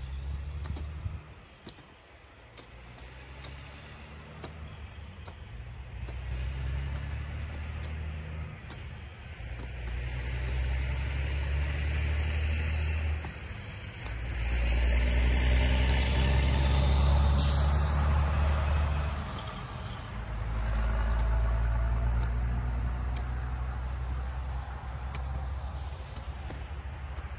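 Grub hoes chopping into soil and sod in steady, repeated strokes, under a deep rumble that swells and fades several times and is loudest in the middle.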